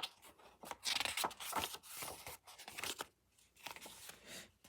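Paper and plastic rustling and crinkling as album inclusions are handled and pulled out, in irregular bursts that ease off in the last second or so, with a few light clicks.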